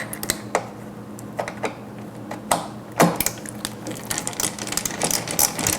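Screwdriver working a screw out of the water pump inside a dental cassette sterilizer: irregular small clicks and knocks of metal on metal and plastic, with one sharper knock about 3 seconds in.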